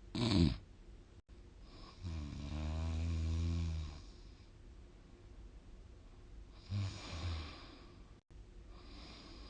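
A sleeping person snoring. There is a short loud burst of breath at the start, then one long, low, rattling snore on the in-breath lasting about two seconds. Two short snorts come about two-thirds of the way through, with breathy exhales in between.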